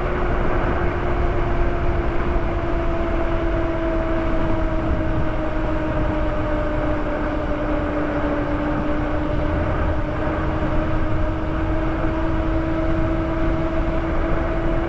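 An electric bike's hub motor whining steadily while riding, its pitch sagging slightly midway and rising again near the end, over wind and road noise on the microphone.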